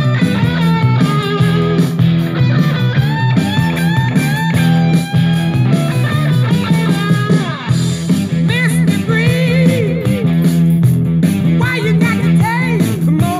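Rock music with guitar, and a voice singing from about halfway, played back from a cassette on a Nakamichi CR-1A two-head cassette deck.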